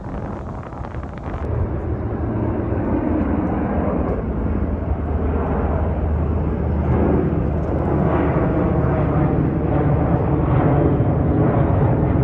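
Jet engines of a low-flying Boeing 737 air tanker passing overhead: a steady, loud rumble that swells over the first couple of seconds and keeps building slightly.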